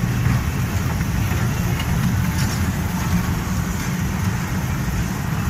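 Steady low hum and rumble of machinery in a large indoor amusement hall where kiddie rides are running.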